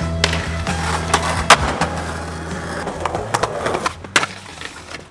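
Skateboard on concrete: wheels rolling, with a series of sharp clacks and slaps of the board popping and landing, the loudest about one and a half seconds in. Music with a steady bass plays underneath and fades out about three seconds in.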